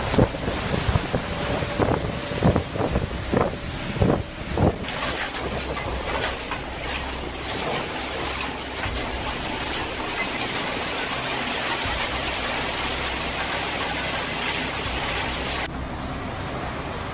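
Storm-force wind buffeting the microphone in hard, uneven gusts for the first few seconds, then a steady hiss of wind-driven heavy rain. Near the end the noise turns duller.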